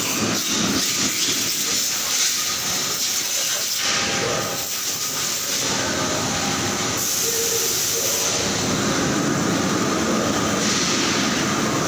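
Steady machinery noise on an engine factory floor, with a continuous hiss.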